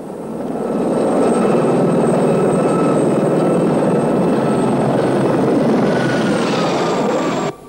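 Helicopter's turbine whine and rotor noise, building over the first second and then holding steady. It cuts off abruptly near the end.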